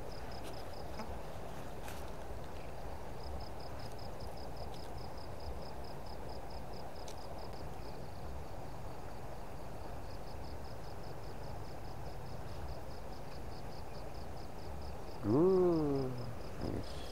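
An insect chirping in a fast, even pulsed trill, pausing now and then, over a steady low rush of river water. About fifteen seconds in, a short call rises and then falls in pitch, the loudest sound.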